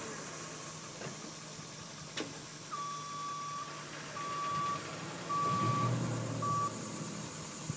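Tow truck's backup alarm beeping four times at one steady pitch, the beeps shortening toward the end, while the truck's engine runs and grows louder around the third and fourth beeps. A sharp click sounds about two seconds in.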